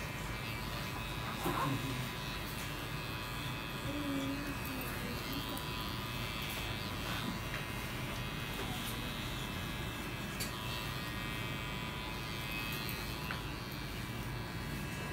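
Electric hair clipper buzzing steadily as it cuts up the nape and around the ear, worked over a comb.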